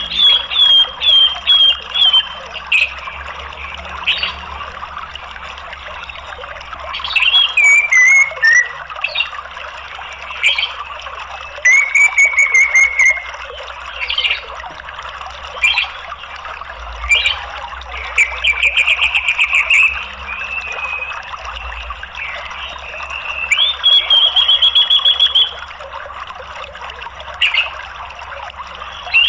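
Orange-headed thrush calling in bouts: a run of short repeated notes, a falling phrase, and several trilled, chattering phrases, with pauses between. Under it runs a steady rush of flowing water.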